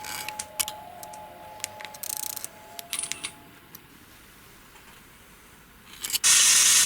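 Scattered clicks and short rustles over a faint steady drone that fades out about halfway. About six seconds in, a loud, steady hiss cuts in abruptly.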